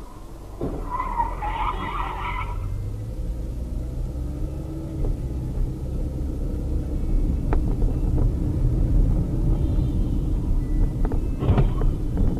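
Car driving on the road, heard from inside the cabin: a steady low engine and road rumble that grows slightly louder. A brief higher-pitched sound comes about a second in, and a few sharp clicks near the end.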